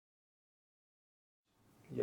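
Silence with no sound at all, then faint room tone fading in during the last half second, just before a voice starts.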